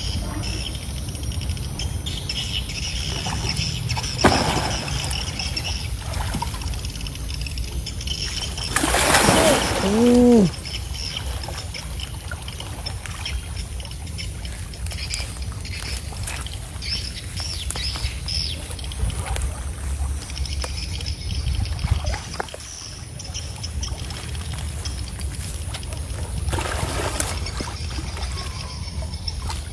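Muddy pond water sloshing and splashing around a man wading chest-deep, over a steady low rumble. About nine seconds in, a brief louder pitched sound slides down in pitch.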